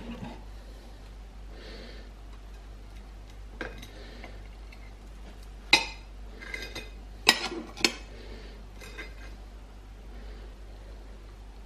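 Table knife spreading peanut butter on toast: soft intermittent scraping with a few sharp metallic clinks of the knife against the plate, three of them between about six and eight seconds in.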